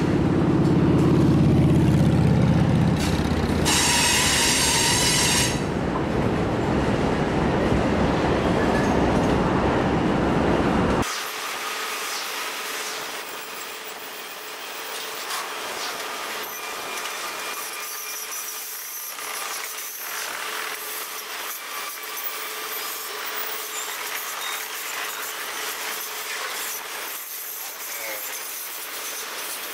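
A freight train rolling past with a deep diesel engine sound at first, and a brief high-pitched squeal about four seconds in. About eleven seconds in the sound cuts off abruptly to a much quieter, steady low hum with light clicks.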